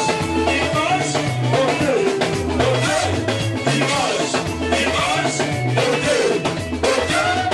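Upbeat music with a steady drum beat, a bouncing bass line and a melody over it.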